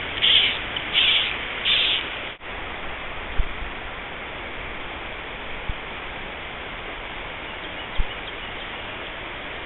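Steady rush of flowing river water, with a bird calling three short times in the first two seconds. The sound drops out for an instant, then the water runs on with a few soft low knocks.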